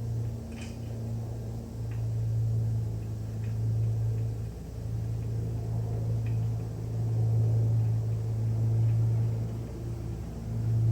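A steady low hum that swells and dips in loudness, with a few faint clicks of parts being handled.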